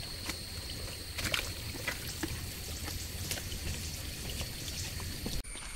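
Steady rush of a swollen, fast-flowing river, with scattered rustles and snaps from someone moving through leaf litter and brush on the bank, under a thin steady high tone. The whole ambience changes abruptly near the end.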